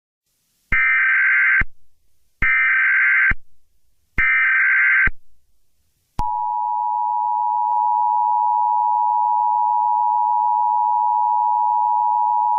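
Emergency Alert System tones: three one-second bursts of SAME header data, a harsh digital screech, about a second and a half apart. About six seconds in they are followed by the steady two-tone EAS attention signal, which holds on.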